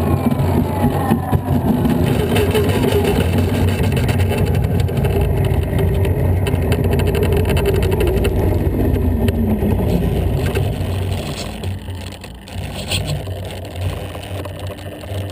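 Onboard audio from the cockpit of a Kyosho Spitfire 50 EP electric model plane rolling out after touchdown: the Scorpion brushless motor and propeller wind down in a falling whine over a steady rumble of the wheels on the asphalt runway. The rumble eases about two-thirds of the way in as the plane slows.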